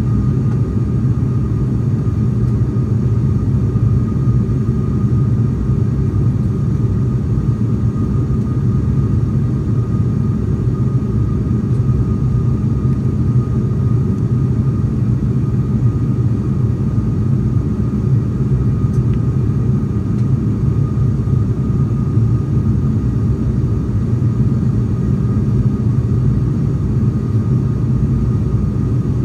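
Steady low drone of an ATR 42 turboprop's engines and propellers, heard inside the cabin in flight, with a thin steady whine above it.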